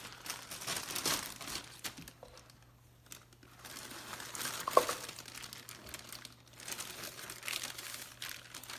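Crinkling and rustling of a replacement air-purifier filter and its plastic wrapping being handled, pausing briefly about two and a half seconds in, with one sharp click near five seconds.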